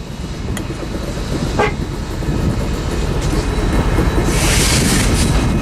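Freight train passing close by: a steady low rumble of diesel locomotives and wheels on rail, with a burst of high hiss about four seconds in.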